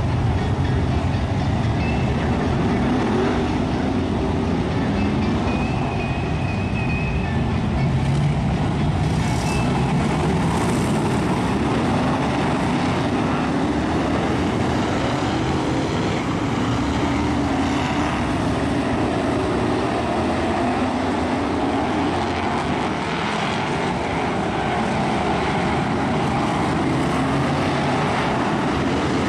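V8 engines of a pack of BriSCA F1 stock cars running around an oval, the engine note rising and falling as the cars accelerate and lift off.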